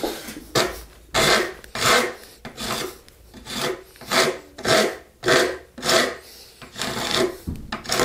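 Hand rasp being pushed across the edge of a thin wooden strip to round over its corner, in about a dozen steady rasping strokes, roughly one and a half a second.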